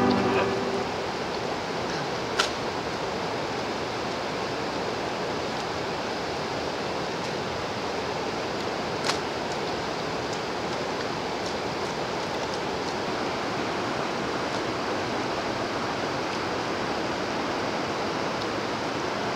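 Steady rushing of running water, even and unchanging, with two sharp clicks about two and a half and nine seconds in.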